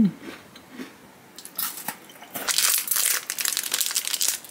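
A short hum of a voice at the very start, then a plastic biscuit wrapper crinkling as hands tear it open. The crackling grows louder and quicker from about halfway through.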